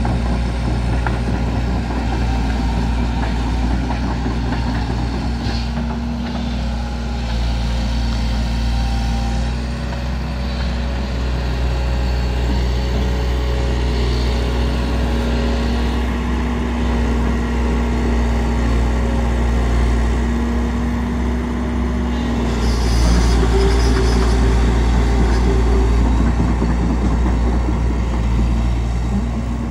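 Kobelco excavator's diesel engine running steadily while it works its boom and bucket through brush, with a steady hum and higher steady tones over it. It grows louder for a few seconds about three-quarters of the way through.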